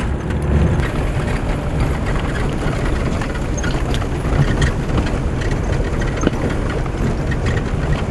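Off-road 4x4's engine running steadily, with a few scattered knocks.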